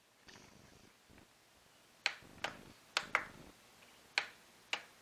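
Countertop vacuum sealer being closed on a plastic bag: a faint rustle of the bag near the start, then six sharp clicks in the second half as the lid is pressed down and latched for a second seal.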